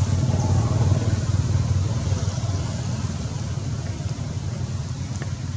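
Steady low rumble of outdoor background noise, easing off slightly toward the end.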